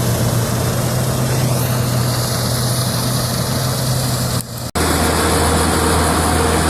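Vintage Dania 900 self-propelled combine harvester running at work, a steady engine and machinery hum. It cuts out for a moment about four and a half seconds in, then resumes with the hum lower in pitch.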